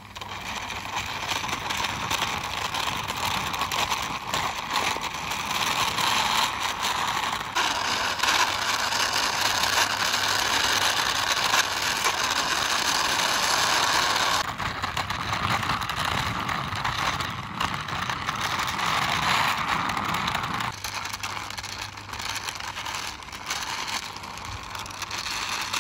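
A plastic toy aerial ladder fire truck is pushed along a rough, mossy stone ledge, its plastic wheels rolling with a steady grinding whirr. The sound shifts abruptly a few times.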